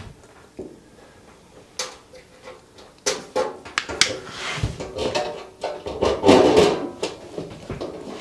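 Hand pop-rivet gun squeezed repeatedly to set a pop rivet through the sheet-metal case of an X-ray film viewer, fixing an earth terminal back on to give a good earth connection. There is a lone click about two seconds in, then from about three seconds a run of sharp clicks and metallic rattling.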